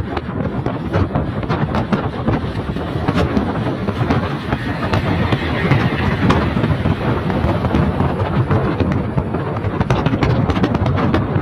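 Steady road and wind noise heard from inside a moving vehicle, with wind buffeting the microphone in a crackle of pops. A truck passing close alongside swells the rush of noise about halfway through.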